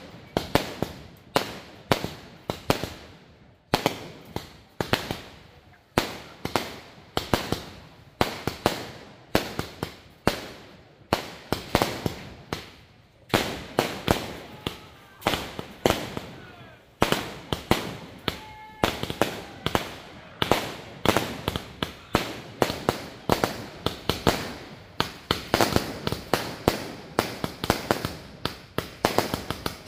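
Aerial fireworks going off in a long string of sharp bangs, about one or two a second, with crackling between them; the bangs come thicker and faster, with many small pops, toward the end.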